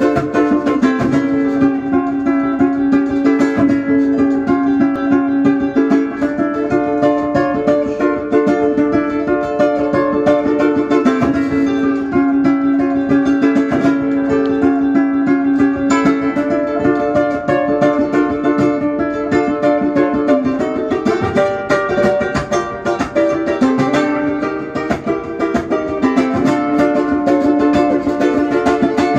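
Ukulele played at a lively pace with dense, quick strums and picked notes, one note ringing again and again throughout; it dips briefly quieter about three-quarters of the way through.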